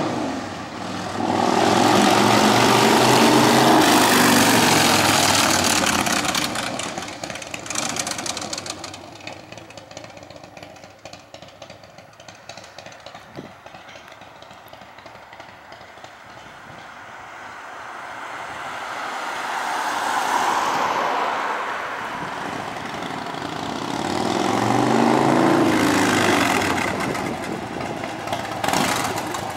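Big Dog K9 chopper's 117-cubic-inch S&S V-twin through Vance & Hines pipes, ridden away loud with the pitch changing as it pulls off, fading into the distance, then growing louder again as the bike comes back, swelling twice before it is near.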